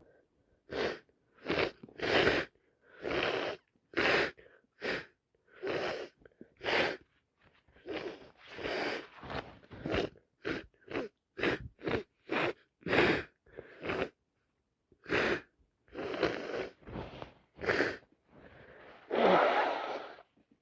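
A woman sniffing and sneezing over and over, over twenty short breathy bursts about a second apart, with a longer, louder one near the end. It is the sound of a streaming, itchy nose, which she takes for either a cold or hay fever.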